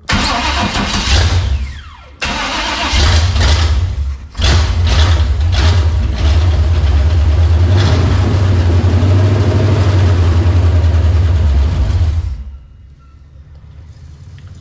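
Chevy 350 small-block V8 firing up, probably running on gasoline poured into the carburetor. It runs briefly, stumbles and catches again twice, then runs loud and steady for about eight seconds before dying out near the end.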